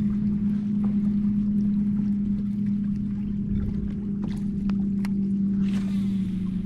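Bass boat's electric trolling motor humming steadily, dropping slightly in pitch near the end. A few light ticks and a short hiss about six seconds in.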